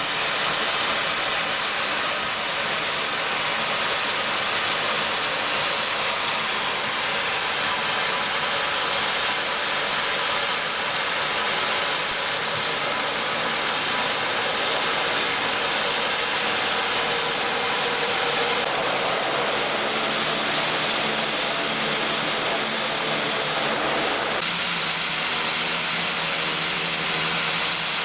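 Twin Garrett TPE331 turboprop engines of a Dornier 228 running on the ground with propellers turning: a steady, loud, hissing whine. Near the end a lower steady hum joins in.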